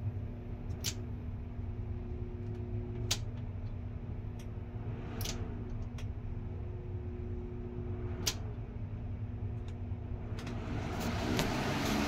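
Lasko box fan, its motor rewired with a switch so it can run in reverse, running with a steady hum and air rush, broken by several sharp clicks. It gets louder near the end.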